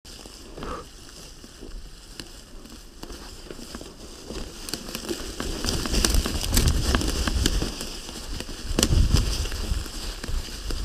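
Mountain bike riding down over a forest floor of dry fallen leaves and twigs: the tyres crackle through the leaf litter with many sharp clicks and rattles. A low rumble grows from about halfway through as the bike picks up speed.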